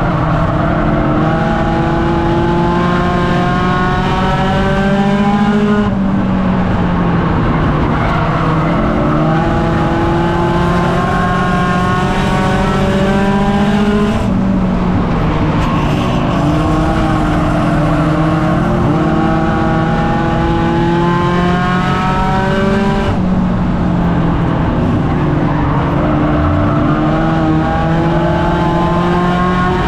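Race car engine heard from inside the car at racing speed. Its pitch climbs steadily and then drops back sharply three times, about every eight or nine seconds.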